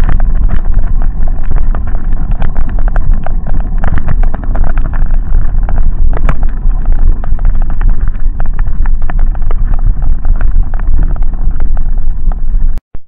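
Mountain bike rolling fast over a rough gravel track: tyres crunching on stones and the bike rattling in a dense run of clicks, with wind buffeting the microphone as a heavy low rumble. It cuts off suddenly near the end.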